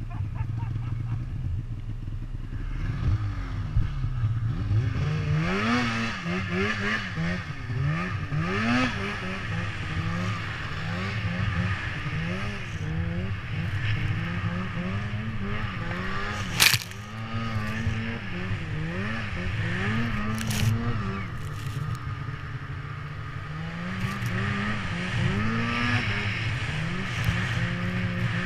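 Polaris PRO RMK 800 two-stroke snowmobile engine working through deep powder, its revs rising and falling again and again with the throttle. A single sharp knock about two-thirds of the way through.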